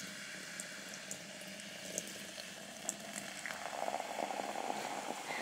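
Sprite poured from a can into a tall glass, the soda fizzing steadily with scattered small crackles; the pour gets louder about three and a half seconds in.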